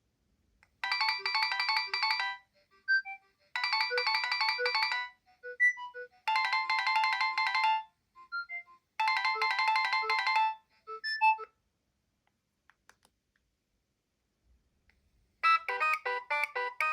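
Nokia 7250i polyphonic ringtone ringing in four bursts of fast repeating high notes, each about a second and a half long, with a few scattered single notes between bursts. After a pause of about four seconds, a different, lower ringtone starts near the end.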